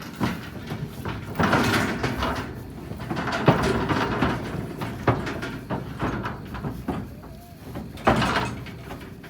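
Metal cattle-handling gates and pens rattling and clanging, with a run of irregular bangs, the loudest about three and a half seconds and eight seconds in.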